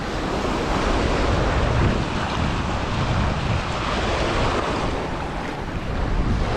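Ocean surf washing and churning over the rocks at the foot of a jetty, a steady rush with a low rumble, with wind buffeting the microphone.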